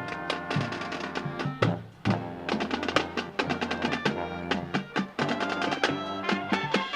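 High school marching band playing, mostly a percussion passage: quick drum strokes over held band notes.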